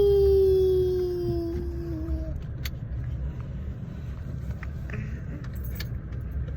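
A long, drawn-out high "wheee" cry that slides slowly down in pitch and stops about two seconds in, over the steady low rumble of a car cabin on the move.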